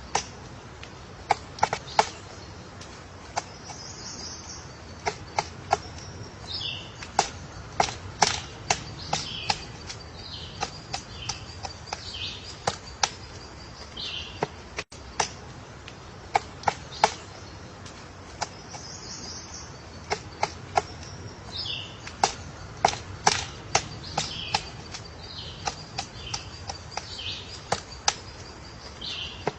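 Woodpecker pecking at wood: single sharp knocks at irregular intervals, sometimes in quick pairs or triplets, not a drumming roll. High bird calls and chirps sound between the knocks.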